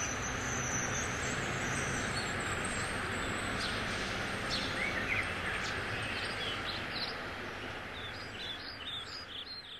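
Outdoor ambience: a steady rush of background noise with birds chirping here and there, fading out near the end.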